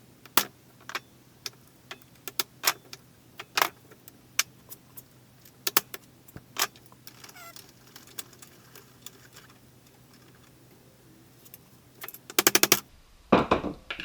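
Steel driveshaft universal-joint yoke being smacked against a metal vise to knock the U-joint bearing caps out: sharp metallic clanks at irregular intervals, then a quick run of blows near the end.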